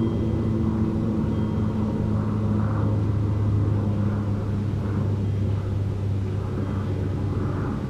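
Steady low engine rumble: a constant hum with held low tones, without rising or falling.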